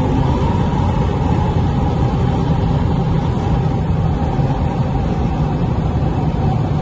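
Infiniti Q50's twin-turbo V6, fitted with downpipes and a single-exit 3-inch exhaust, cruising at a steady speed. It is heard from inside the cabin as a steady low drone mixed with road noise.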